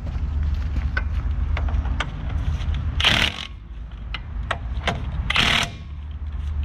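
Impact wrench fired twice in short bursts of about half a second, a couple of seconds apart, running bolts down tight. Light clicks of tools and a steady low hum run underneath.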